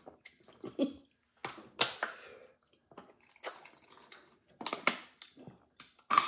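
Close-up eating and drinking noises: scattered short mouth smacks and clicks from lip-smacking, finger-licking and chewing, and gulps from drinking out of a plastic water bottle.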